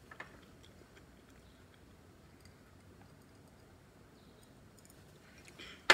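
Near-quiet room with faint mouth sounds of a woman drinking water from a glass, and a single sharp knock right at the end.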